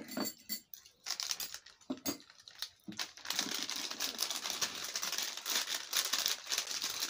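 Plastic snack packets crinkling and rustling as they are picked up, shaken and torn open, a dense continuous crackle from about three seconds in. Before that there are a few separate short knocks.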